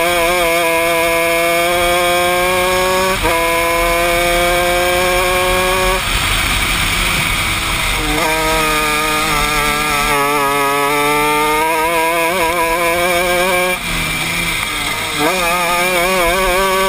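Honda 125cc two-stroke shifter kart engine at high revs, heard onboard: its pitch climbs steadily, drops suddenly at a gear change about three seconds in, and climbs again. Around six seconds it breaks into a rougher sound as the kart comes off the throttle for a corner, then climbs again for several seconds before falling and rising once more near the end.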